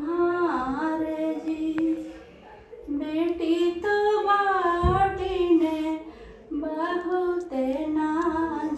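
A woman singing a North Indian wedding folk song (vivah geet) unaccompanied, in long held, wavering phrases with two short breath pauses between them.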